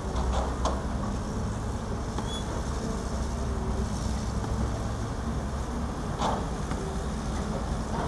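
Diesel engines of crawler excavators running steadily under working load, with a pitched hydraulic whine that comes and goes over the low rumble. A few short, sharp knocks sound near the start and about six seconds in.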